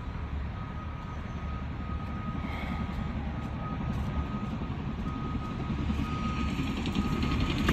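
Cat D6K bulldozer's diesel engine running with its backup alarm beeping over and over, the engine growing gradually louder toward the end.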